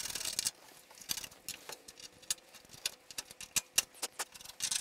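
Metal hand scraper scraping and chipping hardened seam sealer out of a car's rear window channel: a short scratchy scrape at the start, then scattered irregular clicks and ticks as bits break off, and another scrape near the end.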